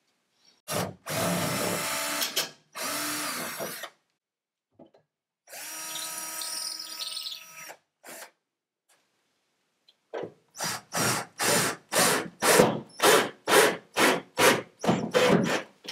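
Cordless drill/driver driving screws through the side of a gun vault to fasten it into the wall: three longer runs of the motor, then about a dozen short trigger pulses, roughly two a second, near the end as a screw is seated.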